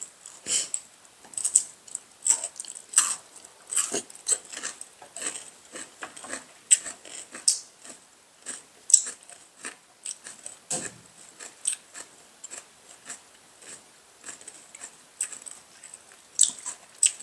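People chewing and biting food at close range: a stream of short, irregular clicks and smacks, a few each second.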